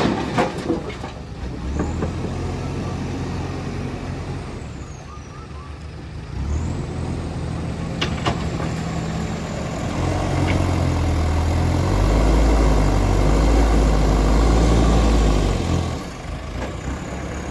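Heavy diesel engine of earthmoving machinery running, working harder and louder from about ten seconds in until about sixteen seconds, then easing back. Sharp knocks at the start and about eight seconds in.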